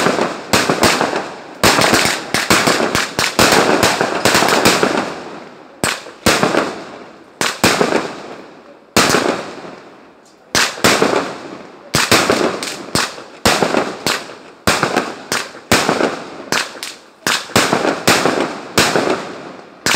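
Aerial fireworks shells bursting one after another: sharp bangs, often less than a second apart, each trailing off before the next.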